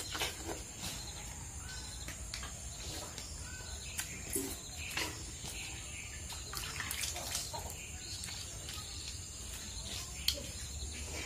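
Outdoor ambience: a steady high-pitched insect drone over a low hum, with faint bird chirps and scattered small clicks.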